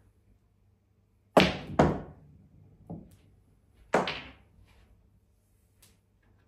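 Pool balls knocking on a small pool table: two sharp clacks close together about a second and a half in, a softer knock near three seconds, and another loud clack at about four seconds as the balls collide and a ball drops into a pocket.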